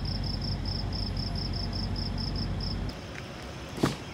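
An insect, most like a cricket, chirping in an even rhythm of about six high chirps a second over a steady low hum; both stop about three seconds in, and a brief whoosh follows near the end.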